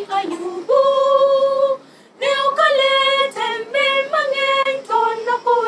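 Church choir singing a gospel song a cappella, women's voices on top, with a short break about two seconds in.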